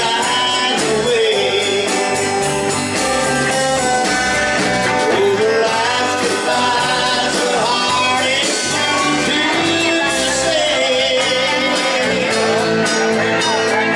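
Live band playing a country-rock number: electric guitars, bass guitar and a Tama drum kit keeping a steady beat.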